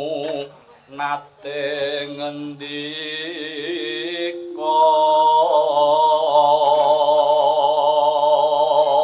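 Javanese langgam singing: a voice draws out long, wavering held notes over a steady low accompaniment, louder and steadier from about halfway through.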